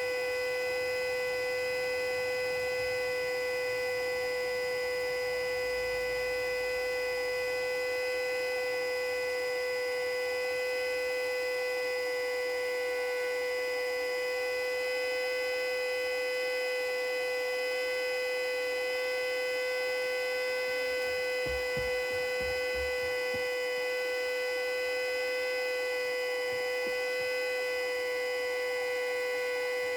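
Custom-built Federal Signal Model 2A siren sounding one steady tone at full speed, with no rise or fall in pitch: the steady alert signal.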